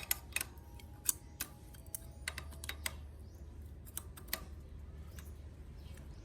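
Scattered light clicks and taps of a pedal wrench and pedal being worked loose and unscrewed from a bicycle crank arm, busiest in the first few seconds and again about four seconds in.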